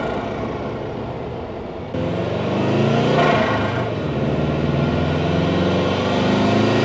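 Subaru Impreza WRX's turbocharged flat-four engine revving up and easing off twice, heard from a microphone in the engine bay near the turbo. The blow-off valve has been removed to bring back the turbo flutter.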